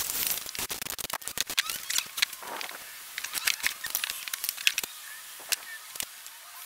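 Workshop handling noises: a string of short sharp clicks, taps and knocks as a freshly cut piece of plywood, a circular saw and a metal ruler are handled and set down on a cardboard box top.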